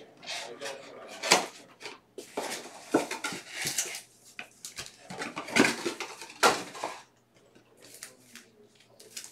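Cardboard trading-card box being opened, and foil-wrapped card packs rustling and crinkling as they are pulled out and sorted by hand, in a run of irregular bursts that ease off about seven seconds in.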